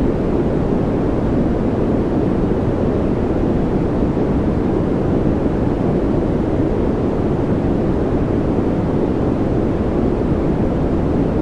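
Continuous noise for relaxation and focus, perfectly steady, with no events. Its weight sits in the low range, so it sounds deep and muffled rather than hissy.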